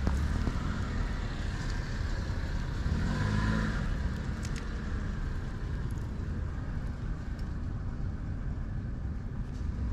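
Road traffic: a car passing, its sound swelling about three to four seconds in, over a steady low rumble.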